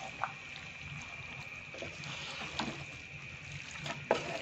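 Wooden spatula stirring potatoes, peas and minced meat in a metal pot, with a few short scrapes and knocks against the pot over a low steady hiss.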